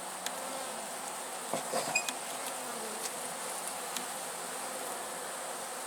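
Honeybees buzzing steadily around an opened hive, a few faint clicks among them; the bees are stirred up by the inspection.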